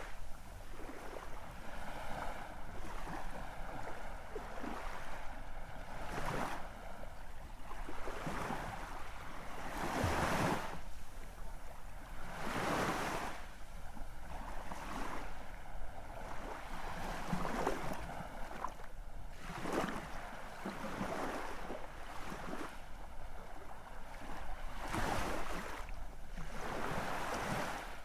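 Sea waves washing onto the shore, the surf swelling and falling away every few seconds, over a steady low rumble.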